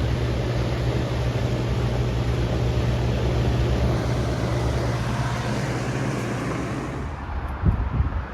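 Outdoor air conditioner condenser unit running: a steady compressor hum under the rushing of the condenser fan. The fan rush drops away about seven seconds in, and a few low thumps follow.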